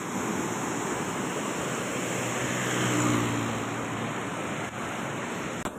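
Water rushing through a barrage gate in a steady, noisy torrent. A motorcycle engine hums past about two to four seconds in.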